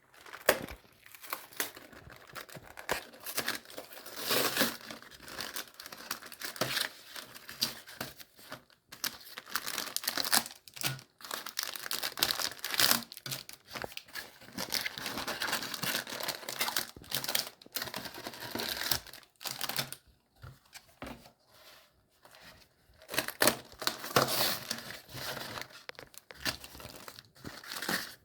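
Plastic cookie packaging crinkling and rustling in irregular bursts as it is handled and torn open, with short pauses between.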